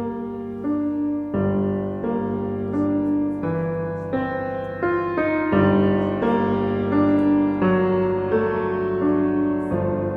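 Background piano music: a melody of held notes changing every half second to a second.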